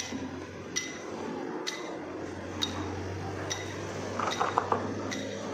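Metal clinks about once a second, each with a brief ringing tone, as steel strikes steel while a tower section is hoisted by hand; a quick run of sharper knocks comes a little after four seconds in, over a low steady hum.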